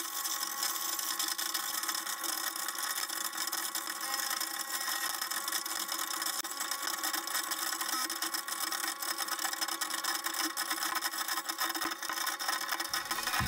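Mountain Plumbing Perfect Grind garbage disposal running, a steady motor hum with a few faint clicks.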